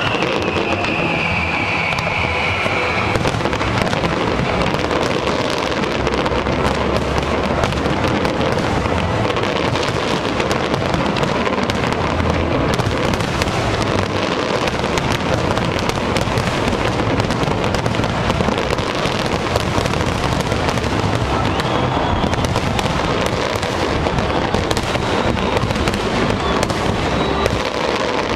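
A dense, continuous barrage of fireworks: rapid bangs and crackling with no let-up. A high whistle sounds over it during the first few seconds.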